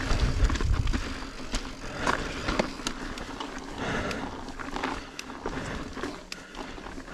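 Mountain bike ridden over slickrock: steady tyre rolling noise with scattered clicks and knocks from the bike, and a low wind rumble in the first second or so.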